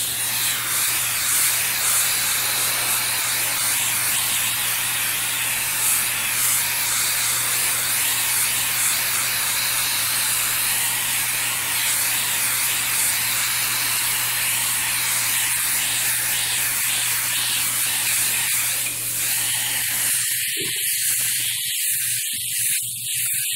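An airbrush spraying paint, a steady hiss of air and paint, with a steady low hum underneath.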